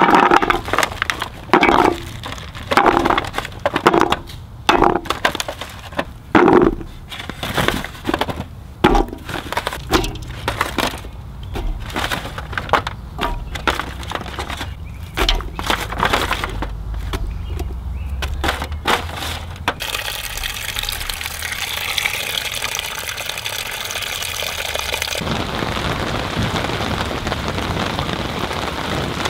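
Raw carrots and chunks of potato, green pepper and onion dropped by hand into an empty aluminium pot, a run of sharp clatters and knocks against the metal. About twenty seconds in the knocking stops and a steady rushing hiss takes over.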